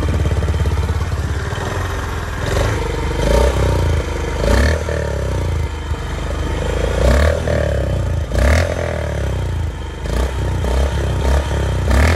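Honda CB350's single-cylinder engine running through its exhaust, idling at first, then blipped on the throttle repeatedly from a few seconds in, each rev rising and dropping back toward idle.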